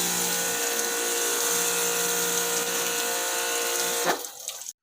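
Electric pressure washer running, a steady motor whine under the high hiss of the water spray, shutting off suddenly about four seconds in.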